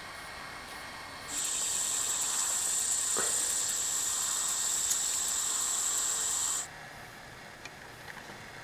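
A steady, high-pitched insect chorus, a hissing drone with one high note held throughout, starting about a second in and cutting off suddenly near the end. Only a faint background hiss lies before and after it.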